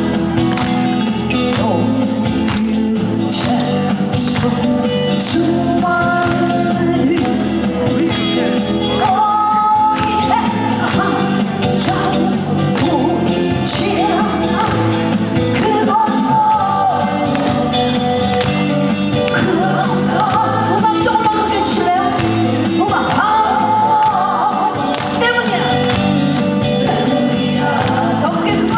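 Trot music with a steady beat and a held, gliding melody line, played loud through a stage sound system with no sung lyrics.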